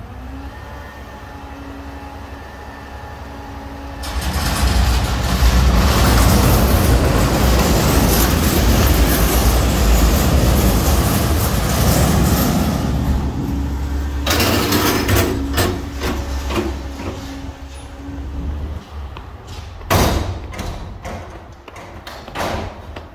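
Front-loading garbage truck running at a steady idle, then running much louder for about nine seconds before easing back down. A sharp thump comes near the end, with a few smaller knocks.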